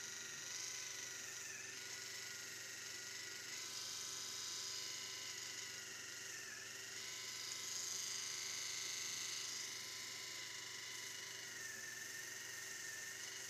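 Electric toothbrush running with a steady buzz while brushing a cat's teeth; its pitch dips briefly a few times as the head presses against the teeth.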